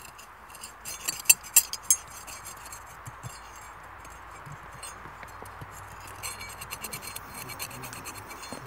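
Broken glass fragments clinking and scraping: three sharp clinks between about one and two seconds in, then lighter scratching, over a steady hiss.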